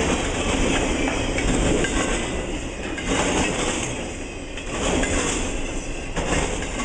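Freight train's loaded flatcars rolling past at close range: a steady rumble of wheels on rail with clicks as wheels cross rail joints, swelling and easing as the cars go by.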